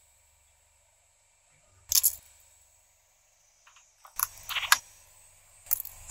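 Sharp clicks and cracks as a car tyre rolls over kitchen knives with plastic handles on asphalt: one crack about two seconds in, a quick cluster a little after four seconds, and another pair near the end, over a faint low rumble from the tyre.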